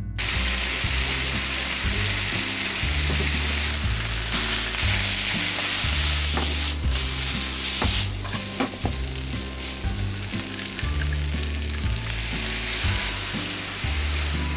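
Yakisoba noodles frying in a hot pan with a loud, steady sizzle, broken by a few sharp clicks of a utensil stirring and tossing them.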